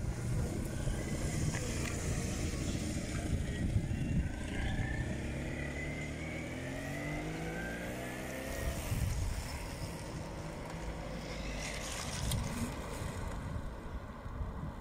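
A motorcycle approaching and passing, its engine note building and then fading away about nine seconds in, over wind rumble on the microphone.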